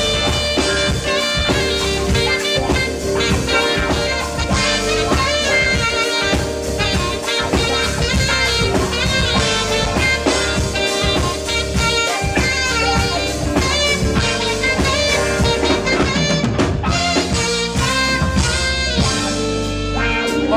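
Jazz saxophone playing a lead melody over a band with a drum kit.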